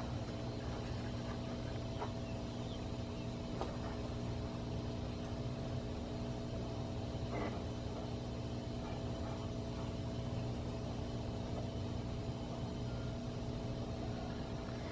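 Steady machine hum: a low drone with several steady tones above it, with a few faint ticks about two, three and a half and seven and a half seconds in.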